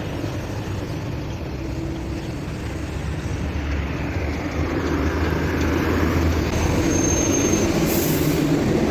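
City bus engine and road noise: a steady low rumble that grows gradually louder.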